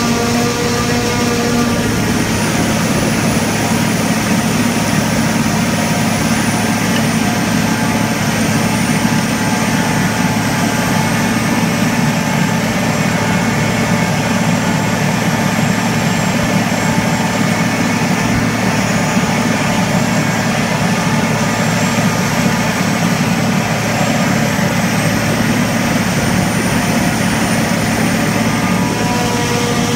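John Deere 6950 self-propelled forage harvester running steadily under load as it cuts and chops a standing crop and blows it into a trailer. Loud, even machine noise from the engine and chopping gear, with a high whine that slowly wavers in pitch.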